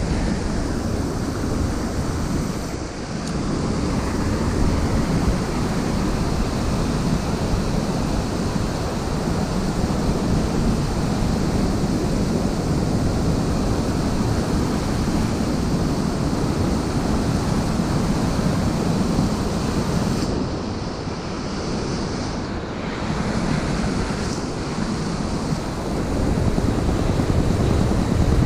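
Surf breaking and washing over shoreline rocks in a steady rush, with wind buffeting the microphone and adding a low rumble.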